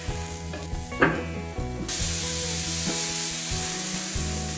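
Chive pockets pan-frying in hot oil, sizzling steadily. The sizzle turns louder and brighter about two seconds in. There is a single sharp knock about a second in.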